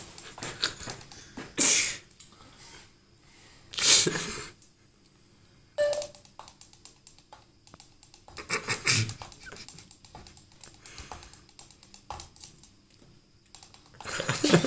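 Miniature tabletop drum kit of small cups and caps tapped with tiny sticks: light, irregular clicks and taps with short pauses, broken by a few louder rustling bursts.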